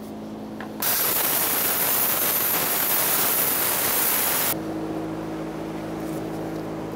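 Handheld gas torch flame hissing loudly for about four seconds, starting about a second in and cutting off sharply. It is heating a rusted stud on an exhaust flange red-hot so the stud can be punched out. A low steady hum lies under it before and after.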